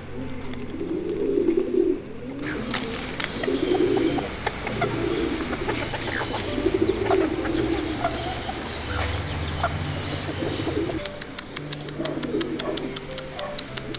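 Doves cooing, a low coo repeated every second or two, with small birds chirping faintly. Near the end comes a quick run of sharp ticks, about five a second.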